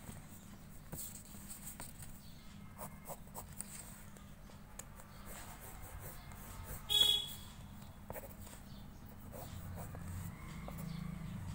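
Pencil scratching lightly on paper as lines are sketched, over a steady low hum. About 7 s in, one brief, loud, high-pitched squeak stands out.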